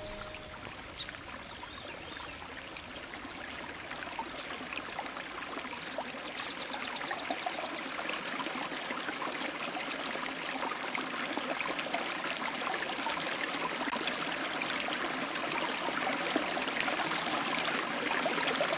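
Running water: a steady rushing, trickling sound that slowly grows louder. About six seconds in, a short, rapid run of high ticks lasts a second or two.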